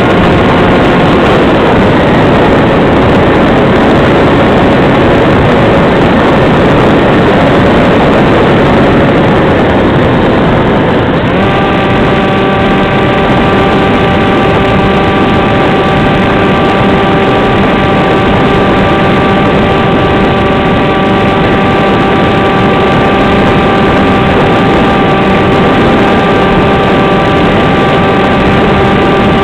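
AXN Floater Jet's electric motor and propeller whining steadily under a constant rush of air noise. About eleven seconds in, the whine shifts to a new, steadier and clearer note.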